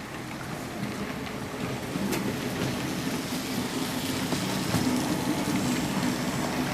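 HO scale model train running on the layout's track, its motor and wheels making a steady hum with a few sharp clicks, growing louder over the first couple of seconds as it comes closer.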